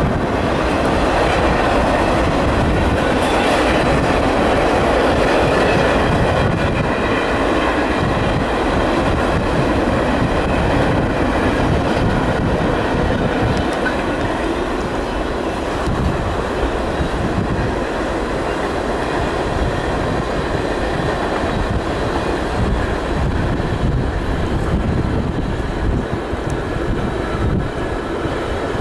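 Freight cars of a CSX manifest train rolling past: a steady rumble and clatter of steel wheels on the rails, a little louder in the first few seconds.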